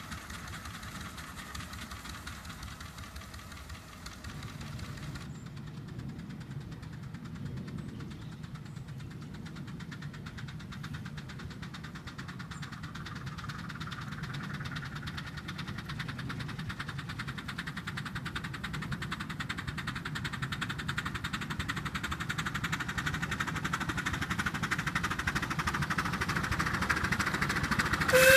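Miniature steam locomotive working along the track with a rapid, even beat of exhaust chuffs, growing steadily louder as it approaches.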